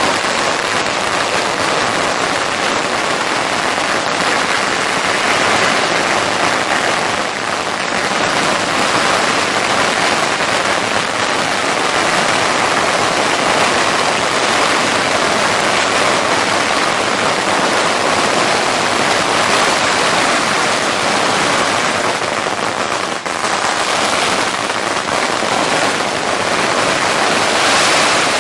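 Long strings of firecrackers going off nonstop, the bangs so dense they merge into one continuous crackle.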